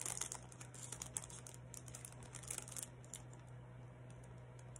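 Faint light clicking and rustling of jewelry and its packaging being handled, mostly in the first three seconds, over a low steady hum.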